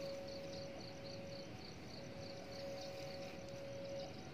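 Insects chirping in a steady rhythm, about four short high chirps a second, over a faint steady tone that breaks off and comes back every second or two.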